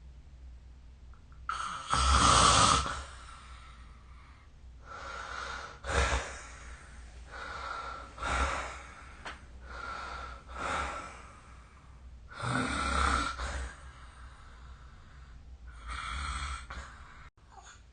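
A sleeping person snoring: a series of noisy, rasping breaths every two to three seconds, the loudest about two seconds in.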